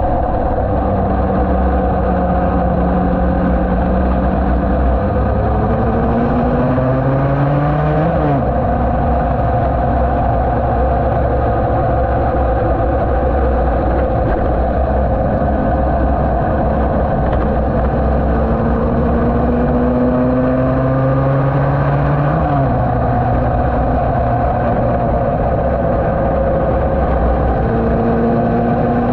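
Yamaha TD1B 250 cc two-stroke twin racing motorcycle engine pulling hard on track. Its pitch climbs slowly, drops abruptly about eight seconds in and again about two-thirds of the way through, then climbs once more. A heavy low wind rumble on the microphone runs underneath.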